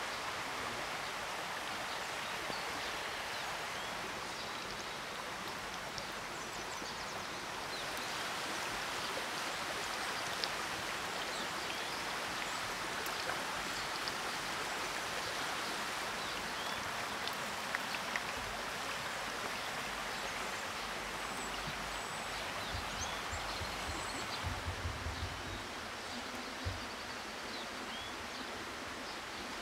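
Breaded chicken patty deep-frying in a pan of hot oil over an open wood fire: a steady, dense sizzle with scattered small pops. A few soft low knocks come near the end.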